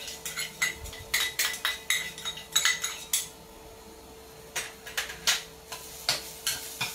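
Metal clinking in a 32 cm stainless steel wok as garlic is tipped in from a small metal bowl and stirred with a metal spatula: a quick run of sharp, ringing clinks for about three seconds, a short pause, then a few more clinks near the end.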